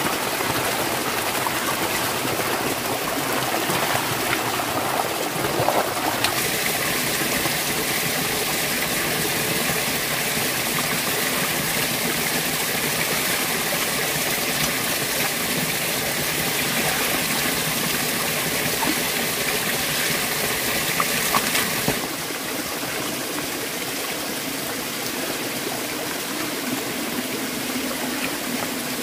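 Steady rush of running water. The sound shifts abruptly twice, about six seconds in and again about 22 seconds in.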